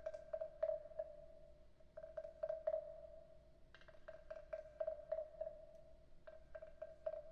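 Wooden frog percussion instrument tapped in quick little runs of hollow wooden knocks, each ringing briefly at the same pitch, with short pauses between the runs.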